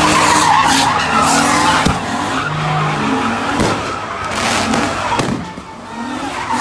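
Car spinning donuts, its tyres squealing in wavering glides over the steady note of the engine.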